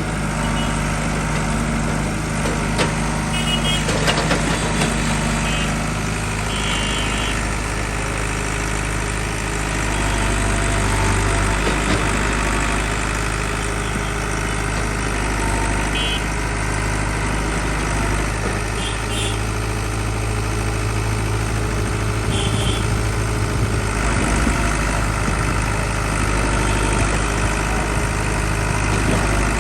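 Diesel engine of heavy earthmoving machinery running steadily near idle, its note swelling and easing a few times as it takes load.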